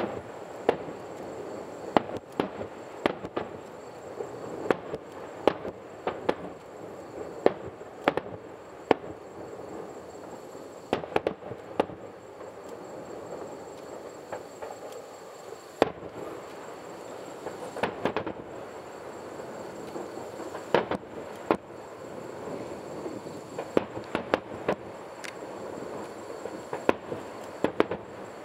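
Aerial fireworks display: shells bursting in an irregular run of sharp bangs, about one or two a second, with a steady background noise between them.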